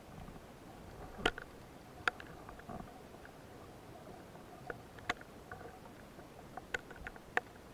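Underwater sound: scattered sharp clicks and snaps, irregular and a second or more apart, over a faint steady hiss.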